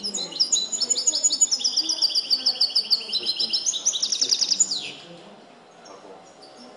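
European goldfinch singing a fast run of rapid repeated trilled notes, loud and continuous, which stops about five seconds in. The bird is schooled in the 'limpio' (clean) song style.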